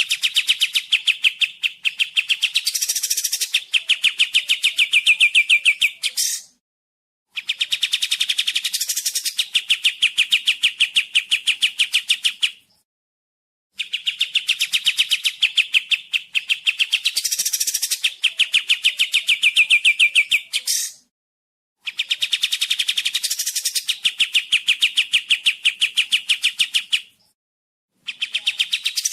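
Kapas tembak singing: long runs of rapid, sharp repeated notes, several a second, in bouts of about five to seven seconds broken by short pauses of about a second.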